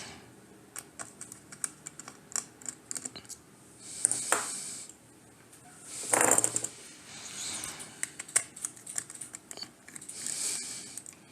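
Light plastic clicks and taps as the parts of an opened Attack Shark X6 wireless mouse are handled during disassembly, with two brief rustling scrapes about four and six seconds in.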